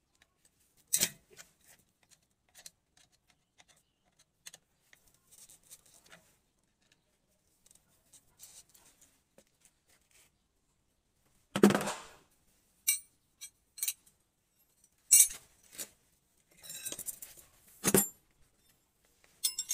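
Steel hand tools, including combination wrenches, clinking and clattering as they are handled, in scattered clicks and knocks with a few louder clanks, the loudest about twelve seconds in.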